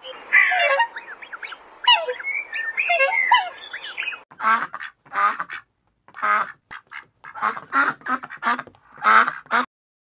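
Animal calls: a dense chatter of short calls gliding up and down for about four seconds, then a run of about a dozen separate short calls, roughly two a second.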